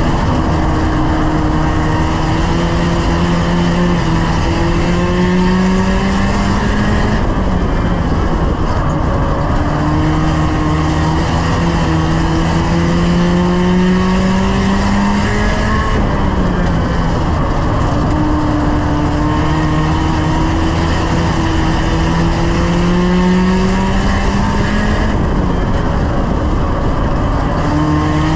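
A 1-litre racing stock car's engine at racing speed, heard from inside the stripped cabin. Its note climbs slowly for several seconds and then drops sharply, three times: about 7, 16 and 25 seconds in.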